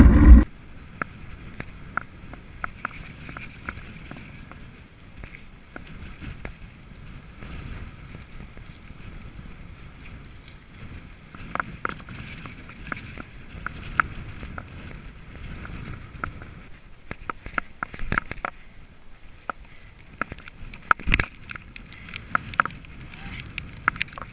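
Mountain bike ridden over dirt tracks, heard from a camera on the bike or rider: a low, even rumble of tyres and air with scattered sharp clicks and rattles from the bike, more frequent in the second half.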